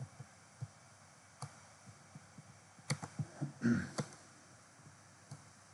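Faint computer mouse clicks, single and scattered, with a quick cluster a little past halfway as allele tiles are dragged and dropped in the software. A brief soft sound comes just after the cluster and is the loudest thing heard.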